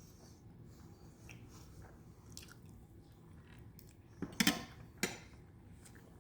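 A person chewing food, quiet and close, with a few sharp clicks about four and five seconds in.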